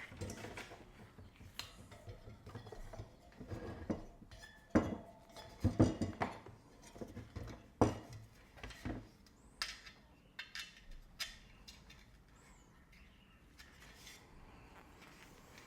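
Irregular knocks and light metallic clinks of a bicycle wheel being handled while a new inner tube is fitted around the rim, the loudest few in the middle and dying away near the end.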